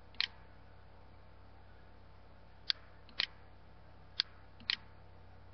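Computer mouse clicking: five short sharp clicks, one just after the start, then two pairs about half a second apart in the second half, over a faint steady hiss.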